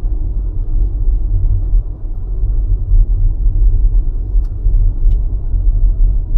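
Low, steady road and tyre rumble inside the cabin of a moving Tesla electric car, with no engine sound.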